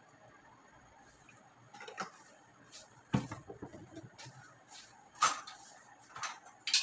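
A handful of separate knocks and clicks from things being handled and set down at the stove, after a near-quiet first two seconds. The loudest are a dull thump a little past three seconds in and a sharp click just past five seconds.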